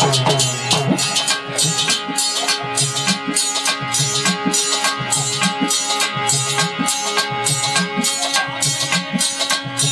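Devotional folk music, mostly instrumental here: a harmonium holds steady notes over a hand drum and a shaker-like percussion keeping an even beat.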